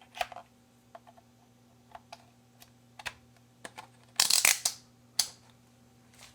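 Scattered small clicks and taps as multimeter test probes and a meter are handled to take a resistance reading, with a louder scraping rustle about four seconds in. A faint steady hum runs underneath.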